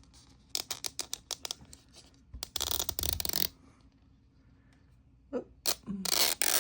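Plastic wrapping on a toy capsule being handled and torn open. A run of small sharp clicks comes first, then a crinkly tear lasting about a second, with more crinkling near the end.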